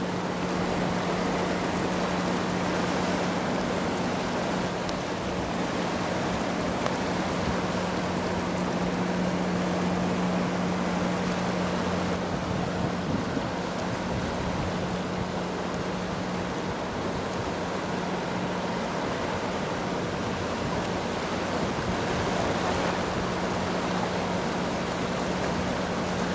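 The Bow River in flood: fast, high floodwater rushing past in a steady, unbroken wash of noise. A constant low hum runs underneath.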